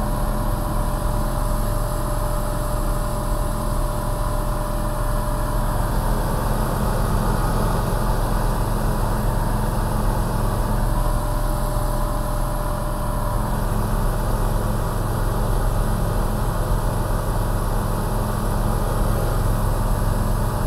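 Light single-engine propeller aircraft's engine and propeller running at full climb power, heard from inside the cockpit as a steady, unbroken drone with a low hum.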